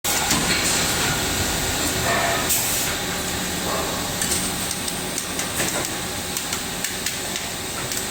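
Factory machinery running: a steady hiss with scattered sharp clicks and light knocks through it.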